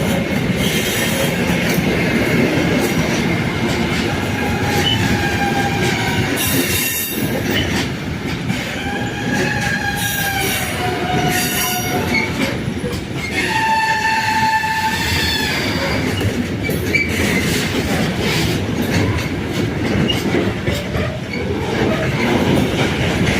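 Train rolling past on the rails with its wheels squealing. Several wavering high squeals come and go over a steady rumble.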